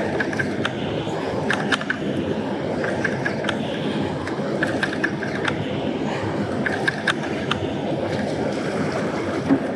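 Spinning reel being cranked in against a small hooked striped bass, giving short bursts of clicking and ratcheting every second or so. A steady rush of water runs underneath.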